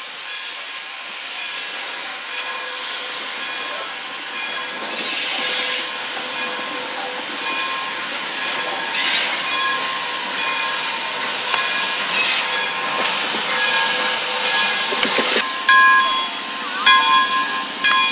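Pere Marquette 1225, a 2-8-4 Berkshire steam locomotive, rolling slowly past with its wheels squealing on the rail in steady high-pitched tones, broken by a few short bursts of steam hiss. The squeal grows louder and turns choppy, stopping and starting, near the end.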